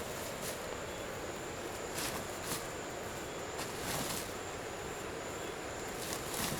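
Outdoor rural ambience with a steady, high-pitched insect drone. A few brief rustles or knocks come about half a second in, around two seconds, around four seconds and near the end.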